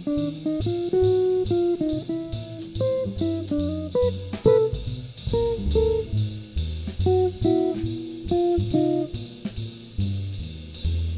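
Small jazz group playing: an acoustic guitar picks a single-note melody over plucked upright bass notes, with light, regular drum-kit cymbal strokes behind.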